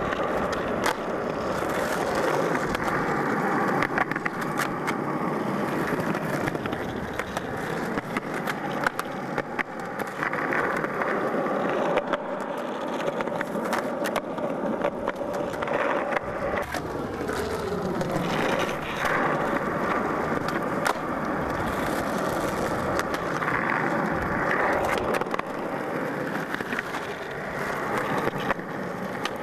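Skateboard wheels rolling over rough concrete with a continuous rolling noise, broken many times by sharp clacks as boards are popped and land on flatground tricks.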